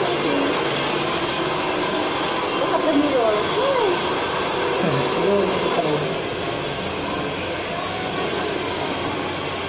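Hand-held hair dryer running steadily, a constant rush of blown air.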